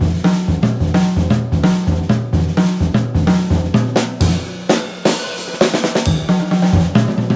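Background music with a steady drum-kit beat and a bass line that changes note on the beat; about four seconds in the bass drops out for a couple of seconds, leaving drums and cymbals, then returns.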